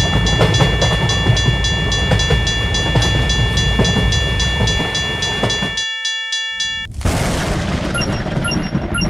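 A level-crossing warning bell rings in a quick, even rhythm while a train passes with a loud rumble. The train sound stops about six seconds in, the bell about a second later, and a burst of noise follows.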